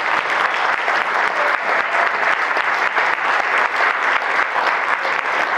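Audience of students applauding steadily, many hands clapping at once.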